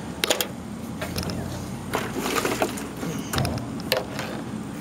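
Irregular light clicks and knocks of handling on a plastic cutting board, as a knife is set down and a blue crab is picked up, with a bunch of taps about two seconds in.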